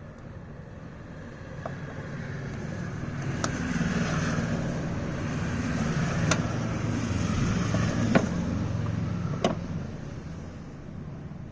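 A motor vehicle passes by, its engine and tyre noise swelling over a few seconds and then fading. Several sharp clicks sound over it.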